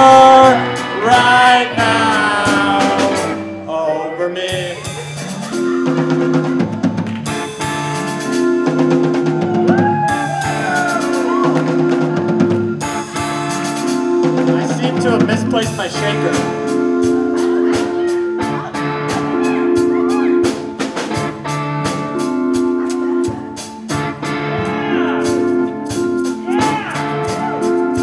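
Live rock band playing a song: a man singing into a microphone over electric and acoustic-electric guitars and a drum kit with steady drum hits. The vocal drops out briefly about four seconds in, then returns in short phrases over the held chords.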